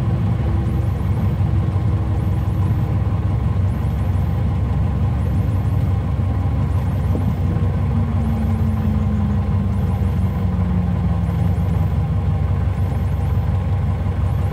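Cockpit noise of a Piper Cherokee 180's four-cylinder Lycoming engine and propeller at idle, a steady drone as the plane rolls on the ground after landing. About halfway through, a fainter tone slides slowly down in pitch.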